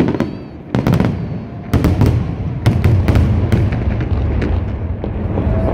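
Aerial firework shells bursting in quick succession: a run of sharp bangs, about one every half second to a second, over a continuous low rumble.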